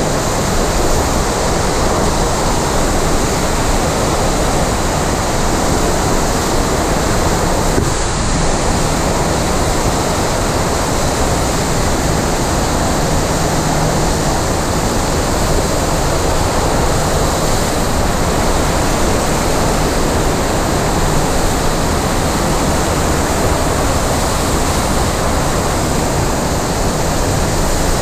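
Steady rush of water from a FlowRider sheet-wave surf machine, a thin sheet of pumped water racing up the padded incline, heard close at the water's surface. The sound is loud and even, without a break.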